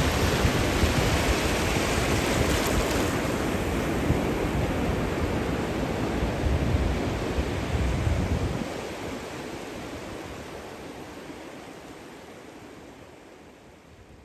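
Ocean surf washing onto a sandy beach, with a low wind rumble on the microphone. The sound fades out steadily over the last several seconds.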